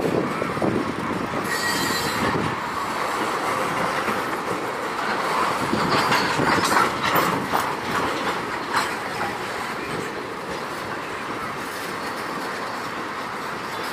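Freight train of tank cars rolling past, steel wheels clicking and knocking over the rail joints, with a brief thin wheel squeal near the start. The knocking is loudest about halfway through, then the rumble eases a little.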